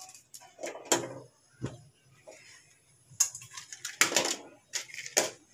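A match being struck on a matchbox held between the teeth: several short scrapes and clicks spread over a few seconds, as a match is lit to light the fire for the tea.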